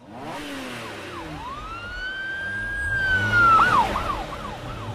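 A siren: one long wail that rises, holds and sinks, then a few quick up-and-down yelps in the last second or so, over a low steady hum.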